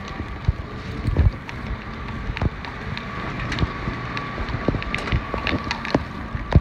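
Rumbling handling and wind noise on a phone microphone carried while walking, with scattered light clicks and taps and a steady thin high tone in the background.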